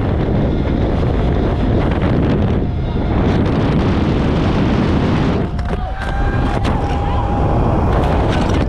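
Leaf blower blasting air at close range, a loud steady rush with heavy wind buffeting on the microphone. A few sharp clicks come about two-thirds through, and the noise cuts off suddenly at the end.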